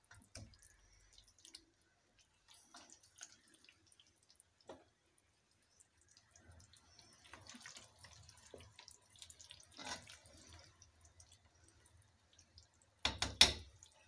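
A spoon stirring chicken pieces through thick masala in a nonstick pot: faint wet squelches and scrapes, with a short cluster of louder knocks near the end.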